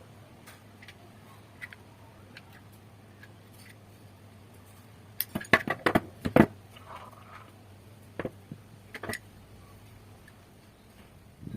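Sharp metallic clicks and knocks from handling metal parts: a quick cluster of about half a dozen loud clicks about five seconds in, then two single clicks a little later, over a steady low hum.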